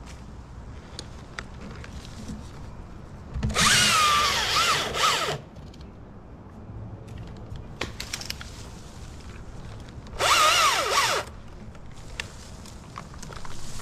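Husqvarna T540i battery chainsaw cutting dead birch limbs in two short bursts, about three and a half seconds in and again about ten seconds in. Its electric motor whine dips in pitch as the chain bites. There are a few light clicks between the cuts.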